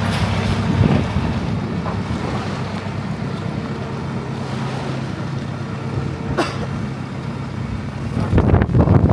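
An engine running steadily, with wind on the microphone; it grows louder near the end.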